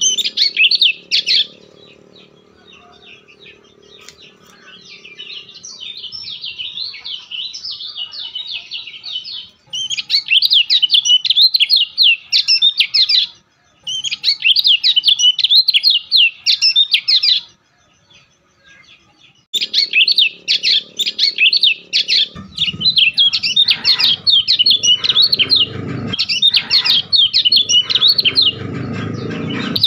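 A small bird singing in repeated fast, twittering phrases, each about three to four seconds long with short pauses between. Low rumbling and thumps join in during the last several seconds.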